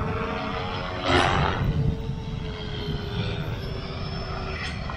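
Radio-controlled helicopter flying overhead: a steady, high rotor and motor whine with slowly shifting pitch, and a loud rushing whoosh about a second in.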